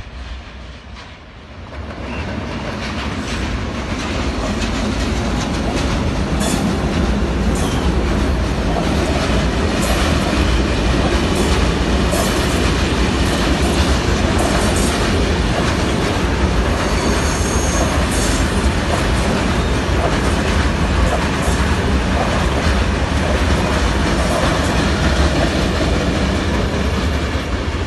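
Train headed by electric locomotive E.191 013 passing close by. It builds over the first few seconds to a loud, steady noise that holds to the end, with wheels clacking over rail joints and a faint high wheel squeal just past the middle.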